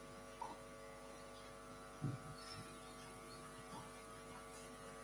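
Faint steady electrical mains hum in the microphone's sound feed, with a couple of soft low thumps, the clearer one about two seconds in.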